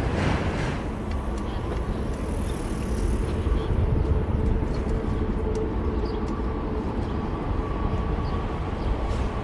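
Wind rushing over the action camera's microphone on a moving bicycle, a steady low rumble, mixed with city traffic noise that is loudest in the first second as a car passes close by.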